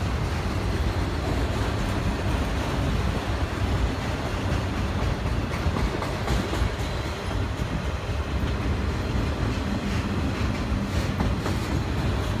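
Autorack freight cars rolling past, a steady rumble of steel wheels on rail with a few sharper clicks over the rail joints.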